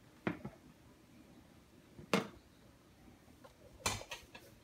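Light knocks and clicks of a clear plastic enclosure and the keeper's hands or tool being handled: two quick taps at the start, a sharper knock about two seconds in, and a short flurry of taps near the end.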